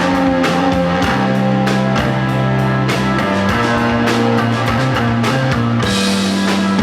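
Rock band playing live: electric guitar and bass holding long notes that shift every second or so over steady drum hits.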